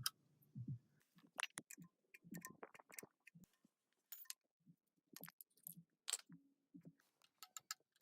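Faint, irregular light clicks and metal taps from hand tools loosening and removing bolts on a diesel engine block.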